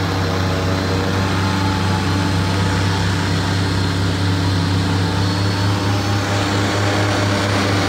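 Airboat engine and propeller running steadily at speed, a constant low drone.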